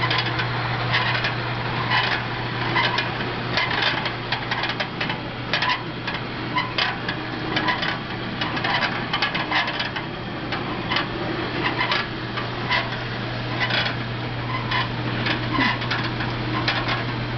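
Electric drill running steadily, turning a rod spit and a wire-mesh basket of green chillies, with a steady motor hum under irregular metallic clinks and rattles from the turning spit and basket.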